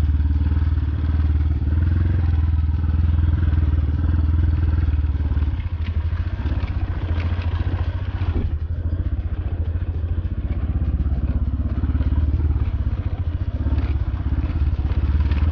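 Motorcycle engine running steadily under way on a rough off-road track, with a few brief knocks and rattles a little past the middle.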